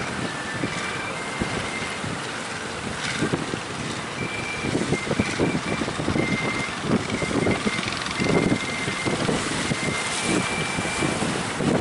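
Strong wind buffeting the microphone in irregular gusts over a steady rushing noise, with a faint high thin tone coming and going.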